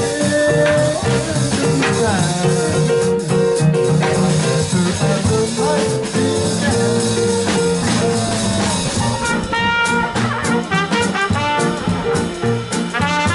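Traditional jazz band playing: keyboard piano chords and a drum kit keep time, and a trumpet comes in about two-thirds of the way through.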